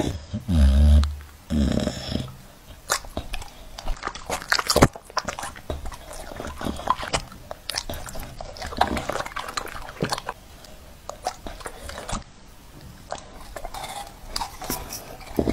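A dog eating food off a fork: wet smacking and chewing with many short crunching clicks. There are two loud, low sounds within the first two seconds.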